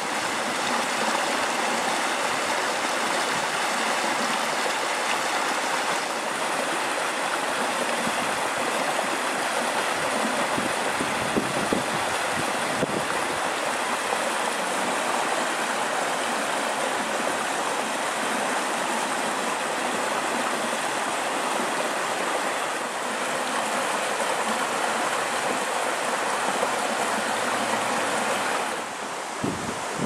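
Shallow mountain stream babbling over rocks and small cascades: a steady rush of running water, dipping a little in level near the end.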